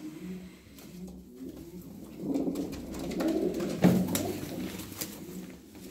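Domestic pigeons cooing, growing louder from about two seconds in, with a single short knock just before four seconds.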